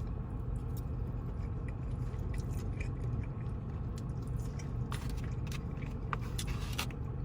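A person chewing food close to the microphone, with wet mouth clicks and smacks that come thicker near the end, over a steady low hum.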